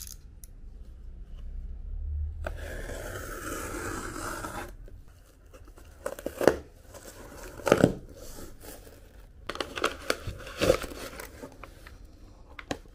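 Plastic-wrapped cardboard package being cut and torn open by hand. A long tearing stretch comes a couple of seconds in, then several sharp crackling rips of plastic film and cardboard.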